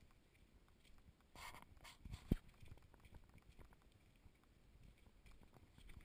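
Faint footsteps on a dirt trail, with soft irregular knocks as the walker moves, a brief rustle about a second and a half in and one sharper knock a little after two seconds.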